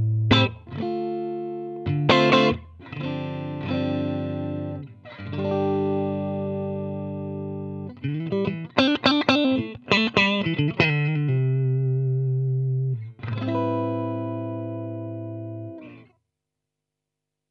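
Electric guitar played through an AmS Hurricane 20 combo amplifier: chords struck and left to ring, with a quick cluster of picked notes partway through. A last chord rings out and stops about sixteen seconds in.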